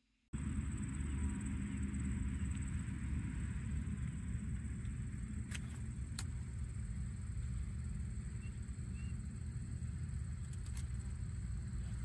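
Outdoor ambience that starts abruptly: a steady low rumble, a constant thin high-pitched whine, and a few sharp clicks.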